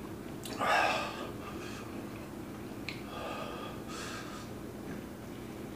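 A man breathing hard through the burn of Carolina Reaper chili heat: one loud sharp breath just under a second in, then two softer breaths around three and four seconds in.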